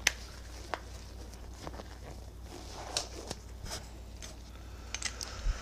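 Scattered light clicks and knocks of small parts and tools being handled on a workbench, the sharpest just after the start and a cluster near the end, over a low steady hum.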